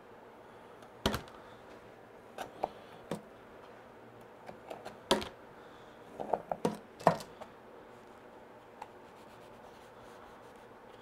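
Butter knife pushing felt down into the grooves between thin wooden spacers, clicking and scraping against the wood. The clicks and short scrapes are scattered, with a quick cluster of several, the loudest, about six to seven seconds in.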